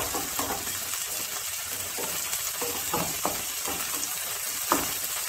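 Sliced onions and chopped tomatoes sizzling in butter in a pan, with a wooden spatula scraping through them in repeated stirring strokes.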